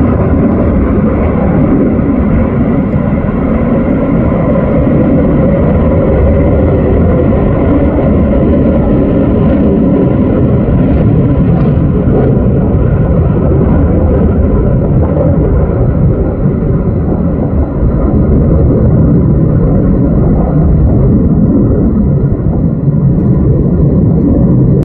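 Fighter jet passing overhead: loud, steady jet noise heavy in the low end, its higher hiss slowly fading as the jet climbs away.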